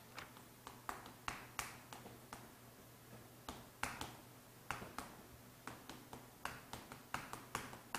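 Chalk tapping and scratching on a chalkboard as a word is written: a quick, irregular run of faint clicks.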